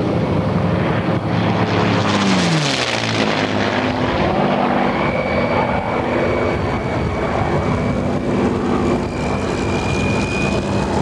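Single-engine piston fighter's propeller engine flying a low pass. Its pitch drops sharply as it passes about two to three seconds in, then it settles into a steady drone as it climbs away.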